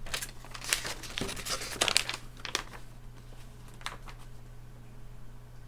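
Paper packing slip rustling and crinkling as it is unfolded and handled: a quick run of crisp crackles over the first two and a half seconds, then one more about four seconds in.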